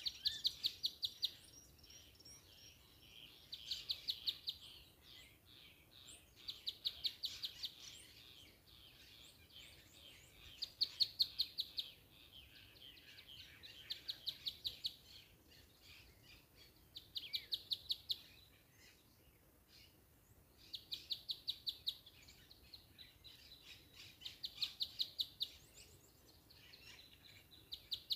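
A bird singing the same song phrase over and over: each phrase is a rapid, high trill of notes about a second long, repeated every three to four seconds over a faint background hiss.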